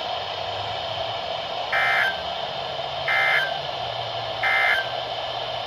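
Emergency Alert System end-of-message code on NOAA Weather Radio: three short bursts of digital data tones, about a second and a half apart, over steady radio hiss, marking the end of the warning broadcast.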